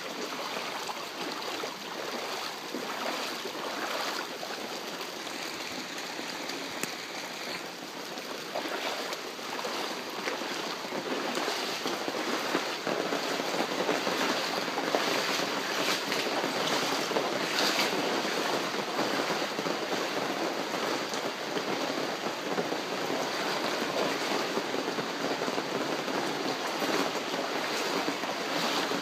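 Torrential rain and floodwater rushing through a street, a steady dense wash of water noise that grows somewhat louder about twelve seconds in.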